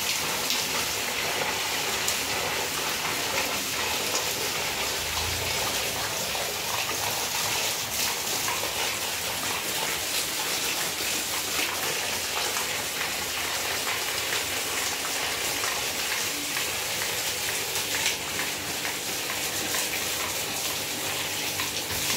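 Heavy rain falling steadily: a dense, even hiss of downpour with fine scattered drop ticks.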